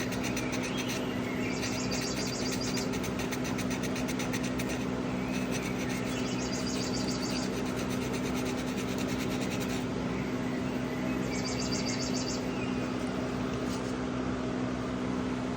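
An electric bench motor runs a fiber wheel with a steady hum. A higher rasping sound comes in four times, each lasting one to two and a half seconds, as the metal of the knife, its brass among it, is pressed against the wheel.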